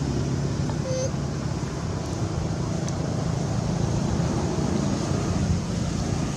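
Steady low engine hum.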